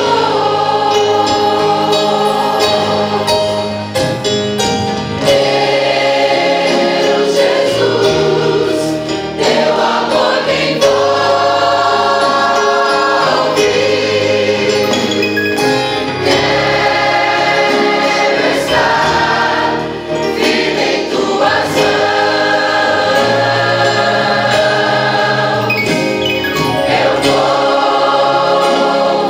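Large mixed choir of men and women singing a gospel praise song in full voice, in long held phrases with short breaks between them.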